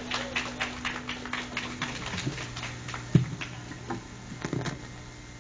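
Small audience applauding after a song, the clapping thinning to a few scattered claps and dying out. A steady low tone stops about two seconds in.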